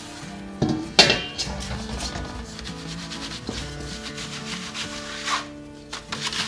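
Flour being rubbed by hand through a wooden-rimmed sieve into a stainless steel bowl: repeated scratchy rubbing strokes against the mesh, with a sharp knock about a second in. This is the seasoned flour for yakgwa dough being sifted.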